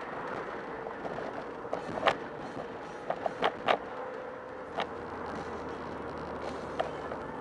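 Car driving, heard from inside: a steady road and engine noise, broken by several sharp knocks or rattles about two seconds in and again between three and four seconds.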